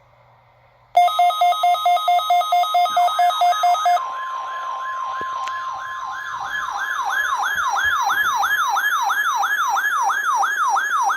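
Weather radio receiver alarms going off for a NOAA Weather Radio weekly test. A loud, rapid two-tone beeping starts about a second in, then gives way to a siren-like wail rising and falling about three times a second. A steady warning alarm tone shows briefly underneath.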